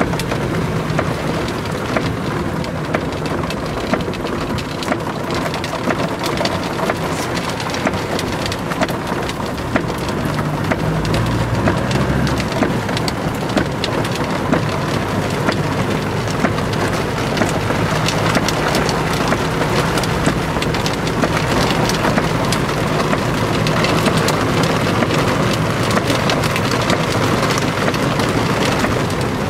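Torrential rain drumming on a car's roof and windscreen, heard from inside the moving car as a dense steady hiss of countless drop ticks, with the car's engine humming low beneath it. A brief low rumble rises about eleven seconds in.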